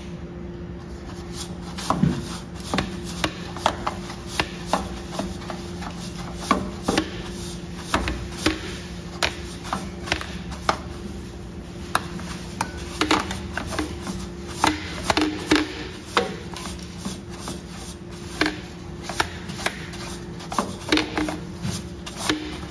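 Irregular clicks, taps and scrapes of hand tools working on a clogged refrigerator condenser to clear it, over a steady low hum.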